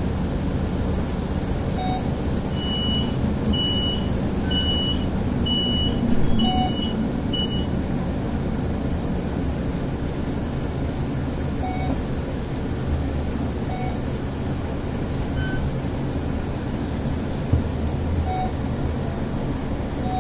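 Scania DC9 nine-litre five-cylinder diesel of a Scania K280UD double-decker bus running, heard from inside the upper deck as a steady low drone. A row of about seven short high beeps sounds between about three and seven and a half seconds in, with a brief knock about six seconds in.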